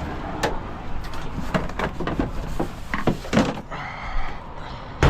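A series of short knocks and clanks from tools and equipment being handled, with one loud thud near the end.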